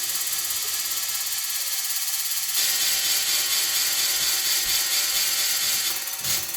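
Electronic noise music: a dense hissing texture with a fast, ratchet-like clicking pulse running through it. It steps up louder and brighter about two and a half seconds in, and short drum-like hits come in near the end.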